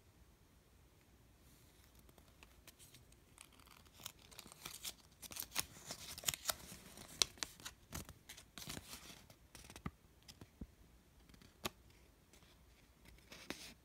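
Crisp paper crackling and rustling as a small folded paper leaflet is unfolded by hand. The crackles come thickest in the middle, after a quiet first second or two.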